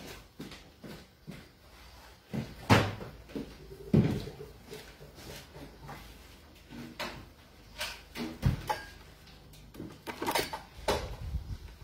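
Scattered knocks, bumps and clatter of things being handled and set down in a kitchen, with rubbing and knocking from the phone camera itself as it is picked up and moved near the end.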